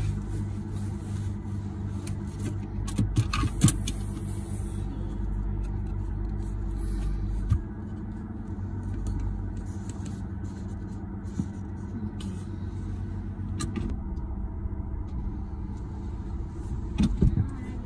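Car engine running with a steady low rumble, heard from inside the cabin as the car idles and then drives off. A few short clicks come about three seconds in and again near the end.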